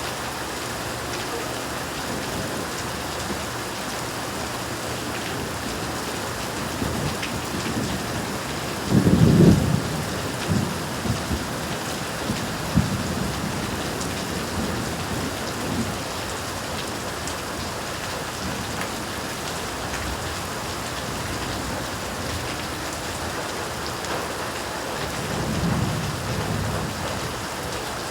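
Steady rain falling, with thunder: a loud low rumble about a third of the way in that rolls on in smaller swells for several seconds, and a softer rumble near the end.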